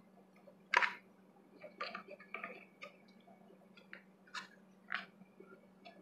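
Hard plastic clicks and taps as the inner inserts are pushed and snapped into plastic paleta (popsicle) molds, the sharpest click about a second in. A faint steady hum runs underneath.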